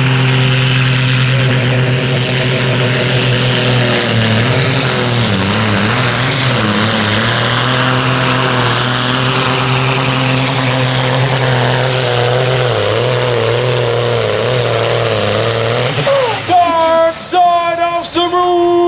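Supersport-class pulling tractor's diesel engine at full throttle hauling a weighted sled, its pitch steady at first and then wavering up and down under load, cutting off about sixteen seconds in. A voice or singing follows near the end.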